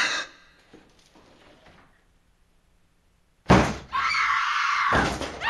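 A sound-only horror jump-scare: a stretch of near-dead silence, then about three and a half seconds in a sudden very loud bang, followed by loud continuing noise.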